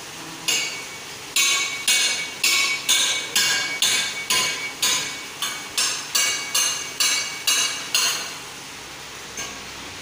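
A metal bar strikes metal at a heat-treat furnace in about fifteen sharp, ringing clanks, roughly two a second, stopping after about eight seconds.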